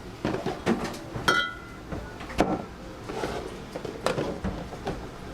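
Kitchen clatter: a run of knocks and clicks from cookware and utensils being handled. About a second in there is one short ringing clink of metal or glass.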